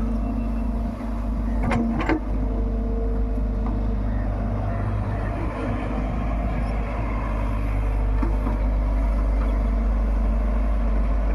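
Diesel engines of heavy earthmoving machinery running steadily at a work site digging and loading sand, with a couple of sharp knocks about two seconds in.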